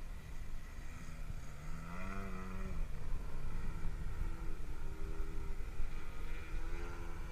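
Radio-controlled model airplane's motor running, its pitch rising from about a second in and then settling into a steadier, higher tone, over a low rumble of wind on the microphone.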